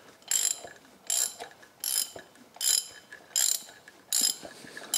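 Ratchet wrench on the crankshaft pulley bolt clicking in short bursts, about one every three quarters of a second, as the handle is swung back between pulls. It is turning a Ford Essex V6 over by hand to check the valve action after new valve stem seals.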